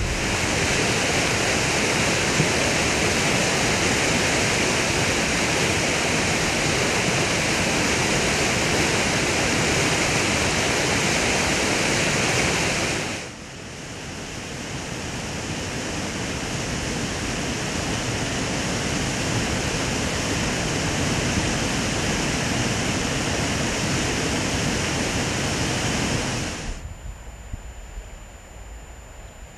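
Water rushing loudly and steadily where the San Gabriel Dam's outlet jet plunges into the flood-swollen river. About thirteen seconds in it switches to a swollen mountain river rushing past rocks, which slowly grows louder, then near the end it drops to a quieter, duller rush.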